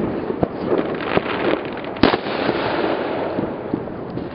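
Fireworks going off: a quick run of pops and crackles, with one louder bang about two seconds in.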